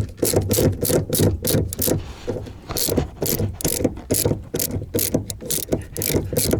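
A ratchet clicking steadily, about three to four clicks a second, as it turns the 14 mm nut on top of a rear shock absorber. The shock shaft may be spinning with the nut instead of tightening.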